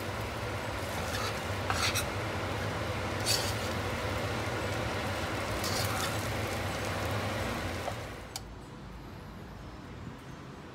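Thin rice noodles being stir-fried in a stainless steel pan: a steady sizzle with a metal spatula scraping and tossing, and a few sharp clinks of the spatula on the pan. The sizzle fades about eight seconds in.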